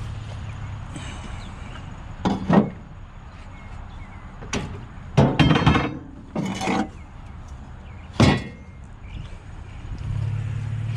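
Scrap metal pieces clanking and clinking as they are set or tossed down while being loaded, about five separate impacts, some ringing briefly.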